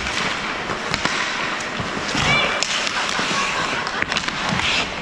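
Ice hockey play heard from the rink boards: skate blades scraping the ice and repeated sharp clacks of sticks and puck, echoing in the arena.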